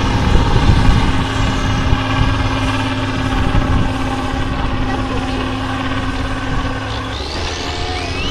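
Heavy off-road trial truck's diesel engine running hard under load as the truck climbs a steep muddy bank, a steady low drone. Its note drops off about seven seconds in.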